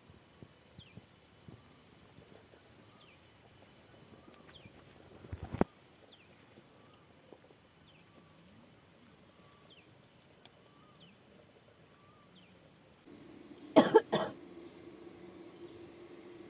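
Steady high insect drone with short falling chirps repeating about once a second. Near the end a person coughs twice, loudly, after one brief sharp sound about five seconds in.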